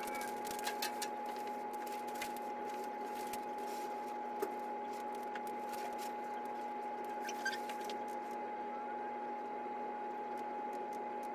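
A steady high electrical hum with a lower hum beneath it, over which come scattered faint clicks and rustles as EKG electrodes and lead wires are attached.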